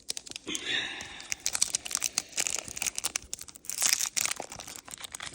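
Foil wrapper of a Pokémon booster pack crinkling and being torn open by hand, in a run of irregular crackles.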